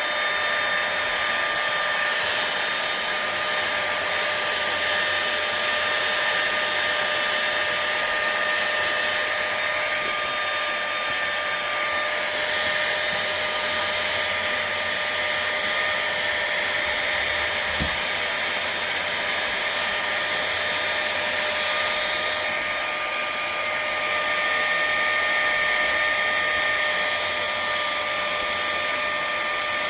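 Flextail Tiny Pump 2 mini electric air pump running continuously: a small fan motor blowing with a steady, high whine.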